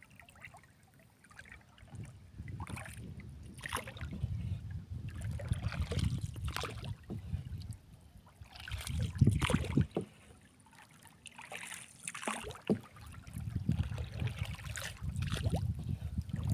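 Water sloshing and lapping around a small boat at sea, coming in uneven surges with a low rumble. The strongest surge is about nine seconds in.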